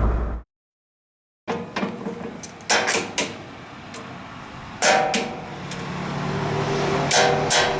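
A low car-cabin rumble cuts off abruptly. After about a second of silence comes a series of sharp metal knocks and clanks, some ringing briefly, over a low hum that slowly swells.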